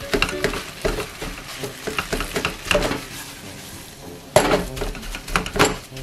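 A metal spoon stirring and scraping thick kimchi fried rice around a non-stick frying pan, with irregular clinks and scrapes against the pan. A busier, louder run of scraping comes a little past the middle.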